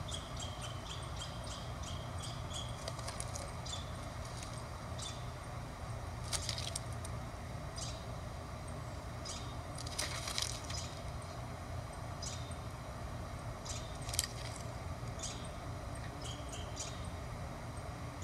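Forest ambience through a nest webcam's microphone: a steady low hum under many short, high chirps from small birds, scattered throughout. Three louder brief crackles stand out, about six, ten and fourteen seconds in.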